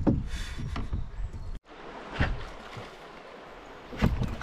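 Canoe paddle strokes in river water, two of them about two seconds apart, over a faint steady wash of moving water. Near the start there is a knock and a brief splash, and the sound cuts out for an instant about a second and a half in.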